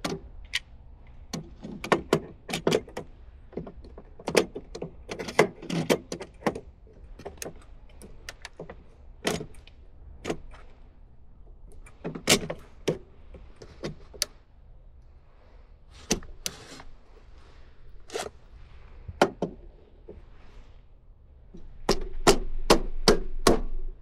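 Sharp plastic and metal clicks and knocks, irregularly spaced, as a circuit breaker is handled and test-fitted into a residential breaker panel. Near the end comes a quick run of clicks over a louder low rumble.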